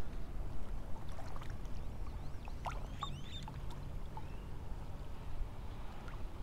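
Water lapping and sloshing over a steady low rumble, with birds chirping faintly a few times around the middle.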